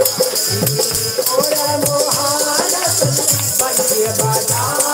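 Live Pahadi bhajan music: a harmonium playing a melody over a steady low beat and constant jingling hand percussion.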